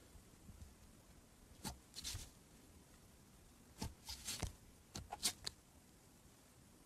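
Fluffy slime made from body wash being squeezed and pressed by fingertips, giving short, soft crackles and pops, some in quick clusters of two or three.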